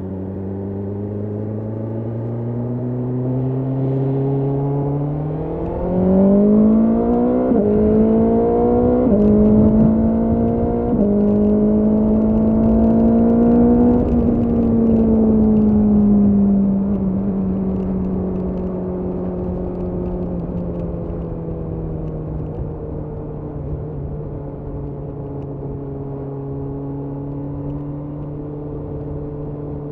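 BMW S1000R's inline-four engine accelerating under load through three quick upshifts, its pitch dropping at each change and climbing again. About halfway through the throttle is eased off and the engine winds down to a steady cruise.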